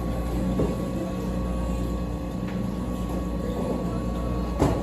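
Steady low rumble of a car heard from inside the cabin while driving, with a single sharp click near the end.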